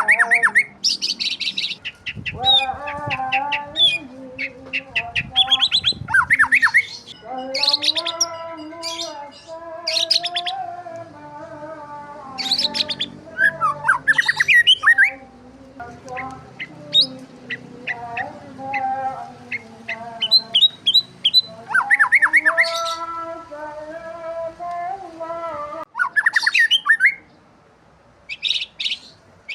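Birds chirping and squawking in dense runs of quick, rising calls, with a lower wavering pitched tone beneath; the calls stop briefly near the end.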